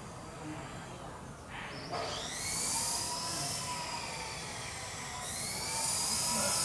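Shrill, high-pitched insect buzzing that swells about two seconds in, with a slowly falling tone beneath it, then eases and swells again about five seconds in, over a low steady background rumble.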